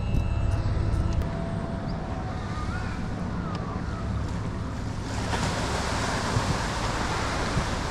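Water washing and lapping around a small fishing boat's hull as it moves in to a mangrove bank, with wind on the microphone and a low steady hum beneath. The water noise grows louder about five seconds in.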